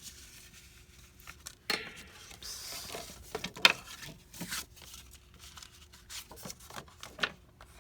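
Paper crafting handling: cardstock and papers rustling and sliding, with scattered light taps and clicks of tools being set down.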